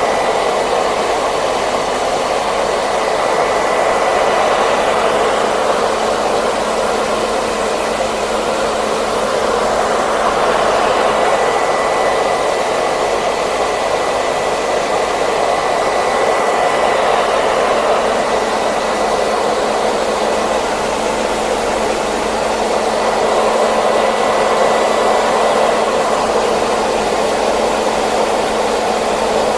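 Hair dryer running continuously: a steady rush of blown air with a faint whine from its fan motor, swelling and easing slightly every few seconds.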